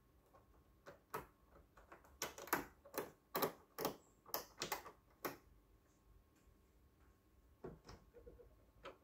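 Sharp clicks and taps of small parts and hand tools being handled: a quick run of about a dozen between about one and five seconds in, then a couple more near the end.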